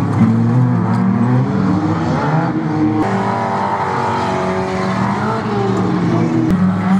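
Engines of several Bomber banger-racing cars running and revving at once, their pitches rising and falling over each other. A single sharp knock near the end.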